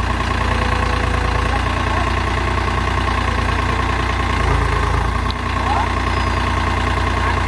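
Tractor diesel engine running steadily with an even, low rumble.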